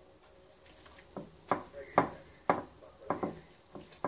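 About seven irregular sharp knocks and clicks from dough ingredients being worked in a mixing bowl with warm water added, starting about a second in.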